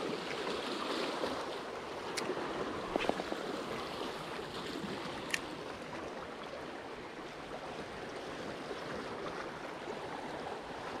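Small sea waves washing and lapping over the rocks at the water's edge: a steady wash, with a few brief sharp clicks about two, three and five seconds in.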